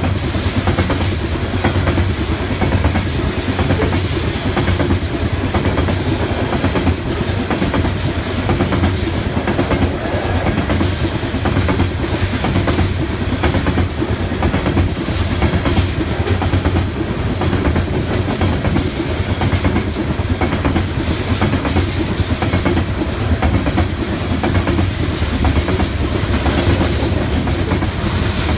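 Freight train of coal cars rolling steadily past: a continuous low rumble of steel wheels on rail, with rapid, irregular clicking as the wheels pass over the track.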